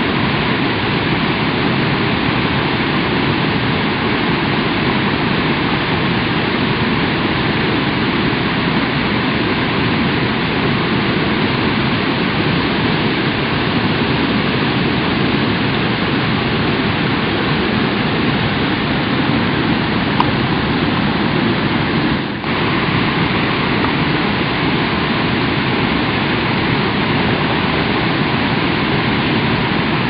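Mountain waterfall and its stream rushing over rocks: a steady, loud wash of falling and churning water, with a brief dip in level about two-thirds of the way through.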